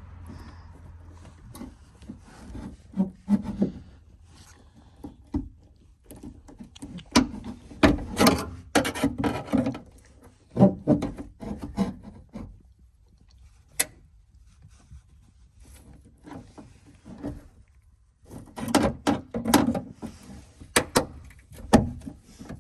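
Metal tools knocking, scraping and clicking against the plastic latch housing inside the rear door of a 2009 Nissan Cube as it is pried and chipped apart. The sounds come in irregular clusters with a few single sharp taps and short quiet gaps between.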